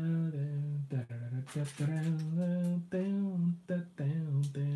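A man humming a wandering tune to himself, in long held notes that slide up and down in pitch, with a few sharp clicks of LEGO pieces being handled about a second and a half in.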